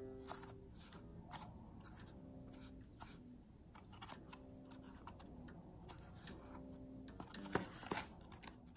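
Faint fingertip taps and scrapes on a phone touchscreen held in a cardboard hood, with louder clicks and scuffs near the end as the cardboard hood is handled and shifted on a cutting mat.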